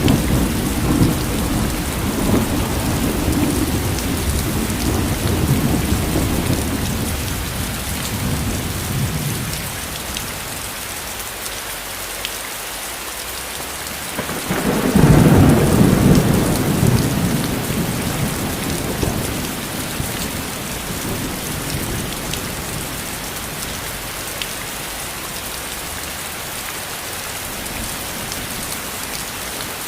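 Steady rain falling, with rolls of thunder. A low rumble at the start dies away over several seconds, and a second roll swells about halfway through and fades, leaving only the rain.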